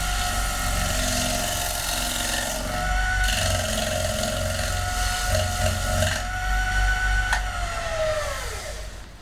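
Wood lathe running with a steady motor whine while sandpaper held by hand rasps against the spinning wooden disc. A little after seven seconds in there is a click, and the whine falls in pitch as the lathe spins down.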